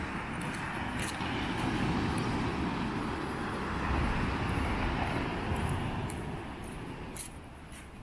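Wind buffeting the microphone over the wash of breaking surf: a noisy rush with a rumble underneath that swells for a few seconds and eases near the end.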